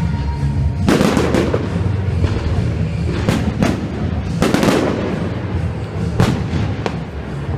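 Aerial fireworks bursting: a series of sharp bangs with crackle, in clusters about one, three and a half and four and a half seconds in, and another near six seconds.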